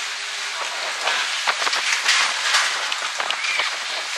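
Squall wind and rain hitting a catamaran at sea: a loud, steady rush with many short, sharp crackling hits, the loudest cluster about two seconds in.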